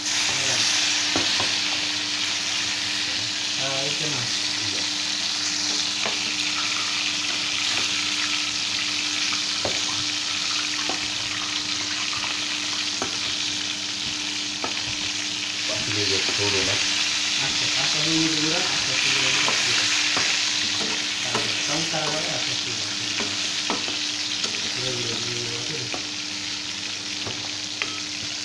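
Fish pieces frying in hot oil in a frying pan, sizzling steadily, with a spatula scraping and tapping against the pan as the pieces are turned.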